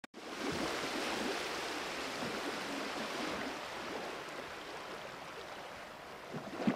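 Paper rustling and sliding on a desk as a sheet of scrapbook paper is handled and folded: a steady, hiss-like rustle that slowly grows fainter, with a few small taps near the end.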